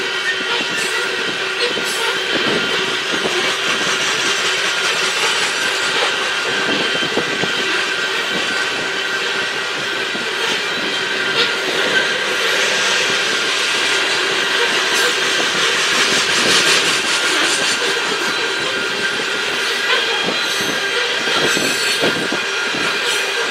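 A long string of coal gondola cars rolling past, with the wheels clacking over the rail joints and a steady high wheel squeal running through the passing train.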